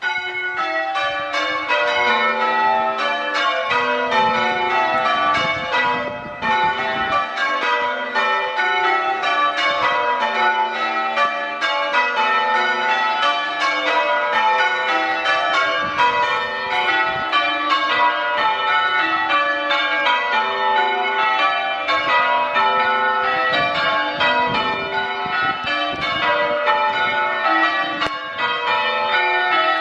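Ring of six church bells being change-rung, loud, the bells striking one after another in a steady rhythm with their ringing tones overlapping.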